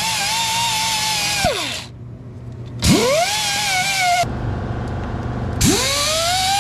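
Small die grinder with an abrasive wheel, cleaning ground connections down to bare metal. It runs with a steady high-pitched whine, winds down about one and a half seconds in, and spins up again with a rising whine about three seconds in. After a short stretch of low hum it rises again near the end.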